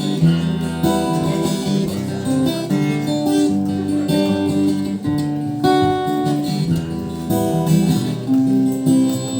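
Acoustic guitar strumming chords, changing chord every couple of seconds: the instrumental intro of a song.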